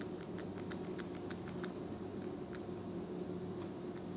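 Light metallic clicking from a two-way disc detainer pick turning the discs inside a Rosengrens 32A81S safe deposit lock: about ten quick ticks in the first second and a half, then a few scattered ones. A faint steady hum lies underneath.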